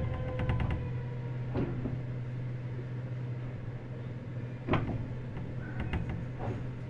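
Mitsubishi GTO-VVVF inverter whine of a Meitetsu 100 series electric train falling in pitch and fading out within the first second as the train slows. A steady low hum follows, with a few short knocks, the loudest about five seconds in.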